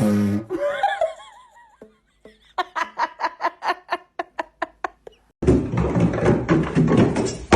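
A person laughing: a wavering pitched sound at the start, then a run of short, even laughs about four a second. Near the end a loud, noisy stretch with many knocks takes over.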